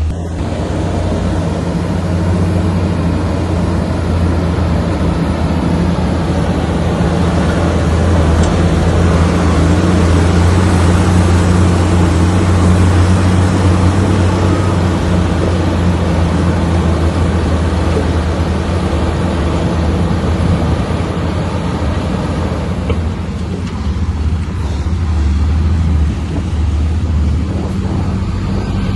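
Komatsu bulldozer's diesel engine working steadily with a deep, even hum, growing louder and harsher in the middle as it works under load, then easing off near the end.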